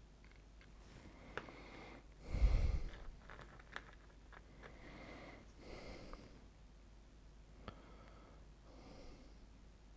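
A person's sharp breath out through the nose close to the microphone, about two and a half seconds in, with a few small clicks of handling around it and softer breathing later.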